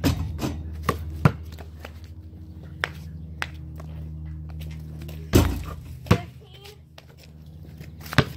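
A rubber basketball being shot at a driveway hoop and bouncing on the pavement. It gives four quick bounces about half a second apart at the start, then a loud bang with a short ringing tail about five seconds in, as it strikes the backboard or rim. Another thud follows soon after, and one more comes near the end, all over a steady low hum.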